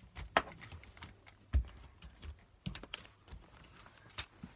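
Irregular knocks, clicks and taps of metal crutches and feet moving on a stunt block, with one heavier thud about a second and a half in.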